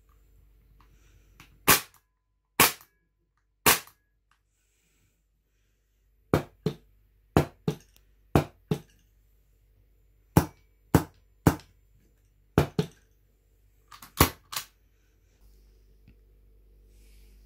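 Tokyo Marui gas airsoft pistols (HK45 and MK23) firing about sixteen sharp shots. Three single shots come first, about a second apart, followed by quick pairs and small clusters.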